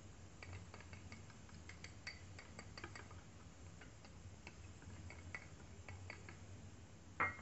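Faint, irregular light clicks and taps of dishes as cornstarch is tipped from a small bowl into a ceramic mixing bowl, over a steady low hum.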